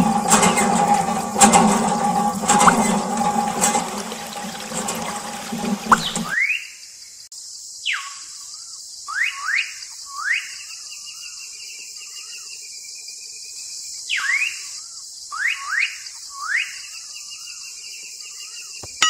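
Water gushing from a miniature hand pump into a small metal bucket, splashing for about six seconds and then stopping. After it comes a steady high hiss with short rising chirps in repeated groups.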